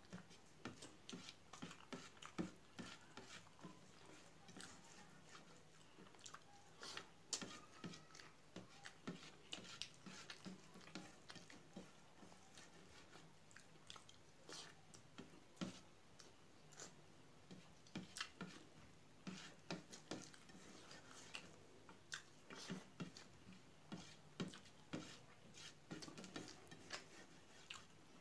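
Faint, scattered clicks and smacks of someone eating rice with curry by hand: chewing and lip smacks, with fingers squishing and scraping the rice on a steel plate.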